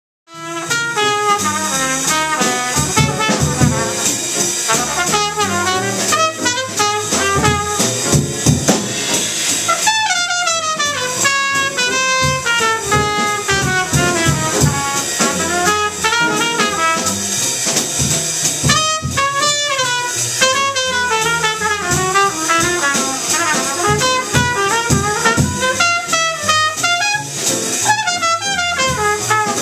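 Small jazz combo of trumpet, alto saxophone, piano, upright bass and drum kit playing a jazz tune, with the trumpet carrying the lead line over the rhythm section. The music cuts in just after the start.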